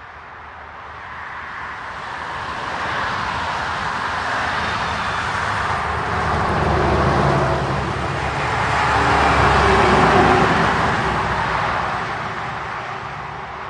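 Cars passing on an asphalt road: tyre and engine noise swells over several seconds, peaks twice, about seven and ten seconds in, then fades away.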